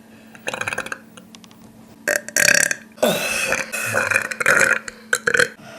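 A person deliberately forcing a series of deep-throat burps. A short rattling one comes about half a second in, then louder, longer burps from about two seconds in, one drawn out for over two seconds.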